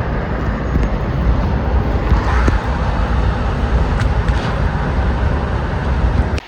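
Steady road noise of a moving vehicle: a continuous low rumble with a hiss of engine and tyre noise.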